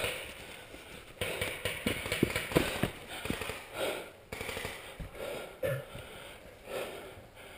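Paintball markers firing: an irregular run of sharp pops, thickest in the first few seconds and then spaced out, over rustling of leaves and gear.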